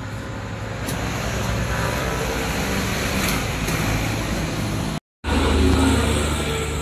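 Steady road traffic noise, a broad rumble with hiss. It cuts out for a moment about five seconds in and comes back louder with a deep engine hum.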